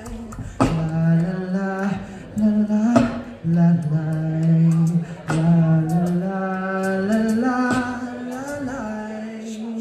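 Beatboxing through a stage microphone and PA: long held, hummed bass-and-melody notes that step between pitches, punctuated by sharp snare-like hits about every two and a half seconds and quick high ticks.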